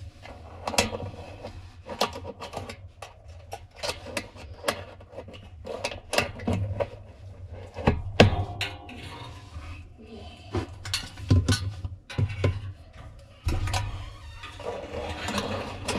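Irregular clicks, scrapes and knocks of hands and a tool working at a coin wedged fast in a washing machine drum, over a steady low hum.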